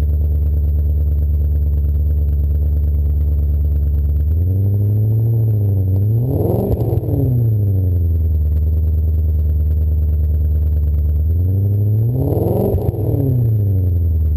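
BMW E39 M5's 4.9-litre V8 through a custom Skytune cat-back exhaust, idling cold and revved twice: each time the pitch climbs over about two seconds, peaks and drops back to idle, the revs about six seconds apart.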